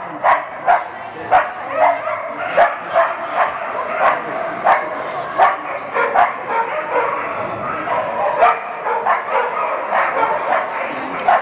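Dog barking over and over, about two barks a second, in a large indoor arena, with voices murmuring underneath.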